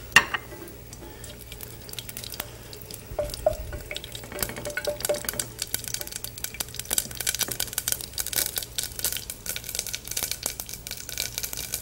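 Black mustard seeds frying in hot ghee in an enamel pot, with a sharp knock just at the start. They sizzle, then from about four seconds in crackle and pop more and more densely as the seeds begin to burst: the sign that the fat is hot enough for tempering.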